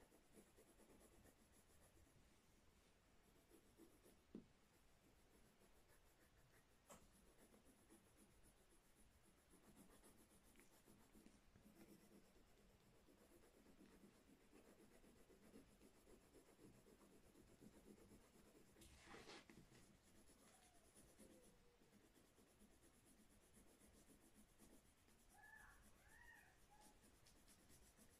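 Faint scratching of a pencil drawing on paper, with a few light taps.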